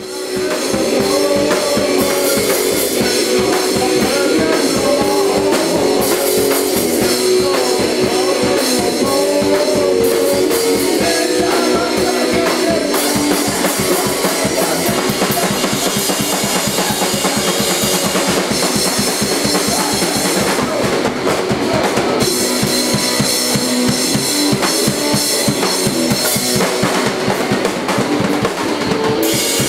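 Rock band playing live, loud, led by a drum kit (bass drum and snare) keeping a steady beat under pitched instruments.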